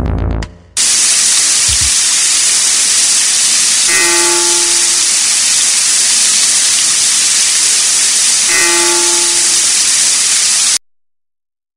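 A loud, steady hiss that starts abruptly, with two short pitched tones about four and a half seconds apart; it cuts off suddenly near the end.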